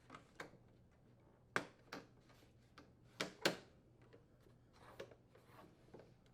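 Plastic inner door trim of a Frigidaire microwave door being pressed and snapped into place: a series of sharp clicks and snaps, the loudest about a second and a half and three and a half seconds in.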